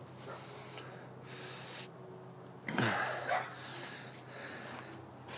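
A person's breath: a short, louder snort or sigh with falling pitch about three seconds in, over a faint steady low hum.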